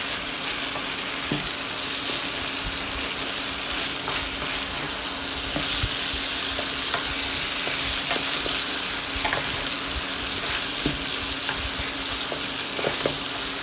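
Chicken pieces with onion, tomato and capsicum sizzling in oil in a stainless steel kadai while a metal spatula stirs them, scraping and clicking against the pan at irregular moments. A faint steady low hum runs underneath.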